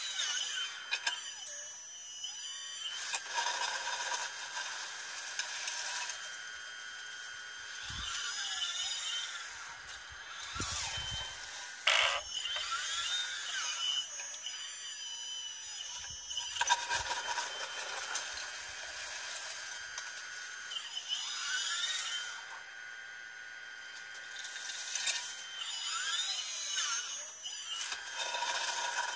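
Hydraulic pump and valves of a 1:14-scale RC Hitachi Zaxis 870 excavator whining as the boom, arm and bucket move, the pitch rising and falling with each movement. A few knocks and scrapes as the bucket digs into leaves and soil, the sharpest about twelve seconds in.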